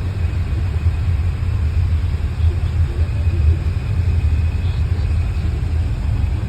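Steady low rumble inside a car's cabin: road and engine noise with the air-conditioning fan running.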